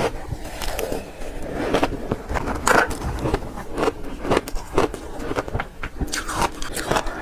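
Shaved ice being bitten and crunched: a run of crisp, irregular crunches, about two a second.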